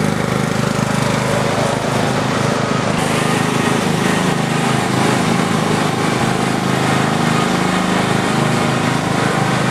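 Lawn mower engine running steadily and loud, close to the microphone.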